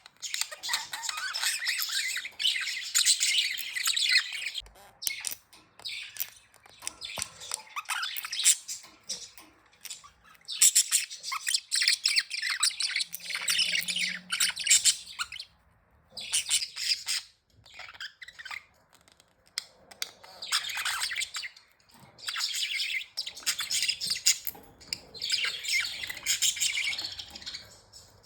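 Budgies (budgerigars) chirping and warbling in bouts of a few seconds with short pauses between.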